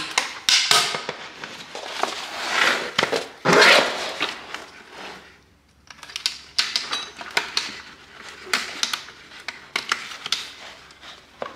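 Plastic blind fittings being handled and pushed together: rustling and scraping in the first few seconds, then a run of small sharp clicks and knocks.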